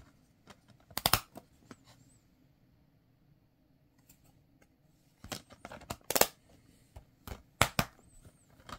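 Plastic DVD case handled by hand: sharp plastic clicks and snaps as the disc and the case's hinged inner disc tray are worked. A quiet stretch in the middle is followed by a run of clicks and snaps, closest together near the end as the case is closed.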